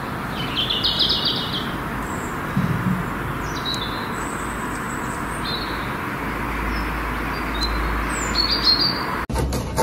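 Small birds chirping in short scattered bursts over a steady outdoor hiss, with a low rumble for a few seconds near the end.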